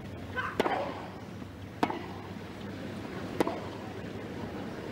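Tennis ball struck by racket strings in a baseline rally: three sharp hits, each about a second and a half after the last.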